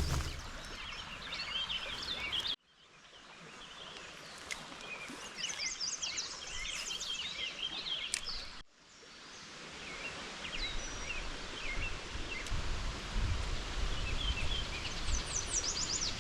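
Outdoor creekside ambience: small birds chirping and calling over a steady background hiss. The ambience cuts out abruptly twice and fades back in, and a low rumble comes in near the end.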